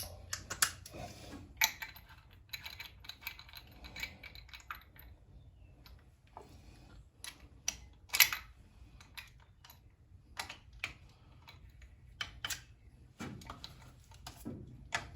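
Irregular sharp clicks and light metallic taps of hand tools and small parts being handled while working on an engine, some louder knocks among them, over a faint low hum.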